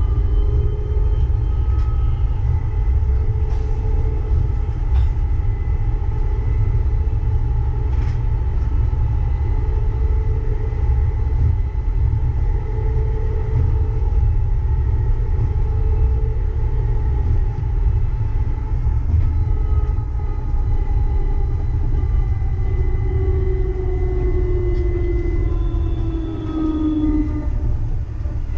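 Uijeongbu light rail train, a rubber-tyred VAL car, running between stations: a steady low rumble under the whine of its drive in several tones. Near the end the whine glides downward as the train slows.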